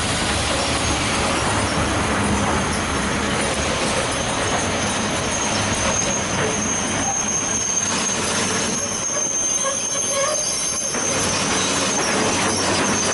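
Freight train of open-top coal wagons rolling past at close range, wheels rumbling on the rails with a steady high-pitched wheel squeal setting in about two seconds in.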